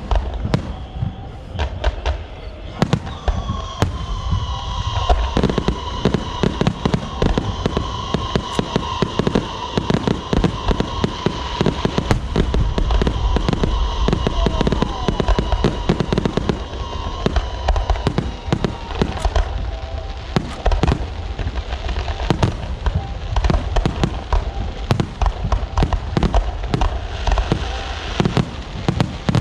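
Firecrackers and aerial fireworks going off in a dense, continuous string of bangs and crackles. A steady high tone sounds over them from about four seconds in until about twenty seconds in.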